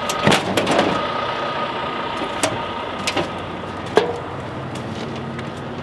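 Folding metal entry steps of a travel trailer clanking as they are pulled down, then knocks of footsteps going up them into the trailer. A steady mechanical hum, like an idling engine, runs underneath.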